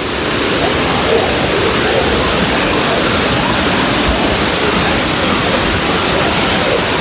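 Waterfall rushing: a steady, even wash of falling water that grows a little louder in the first second and then holds.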